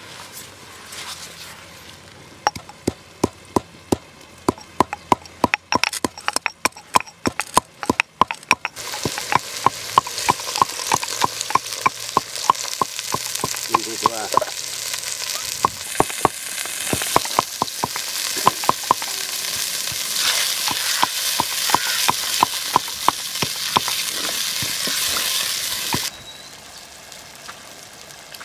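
A run of sharp knocks for several seconds, then oil sizzling hard in a clay pot with dried red chillies while a wooden spoon stirs and clicks against the pot; the sizzle cuts off suddenly near the end.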